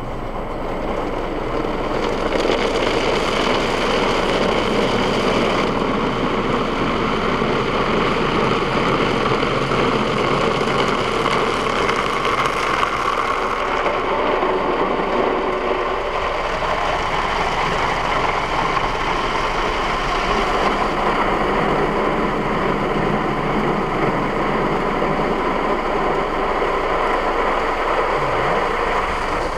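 Automatic car wash heard from inside the car: brushes and water spray washing over the windshield and body, a loud steady rushing noise over the low hum of the wash machinery.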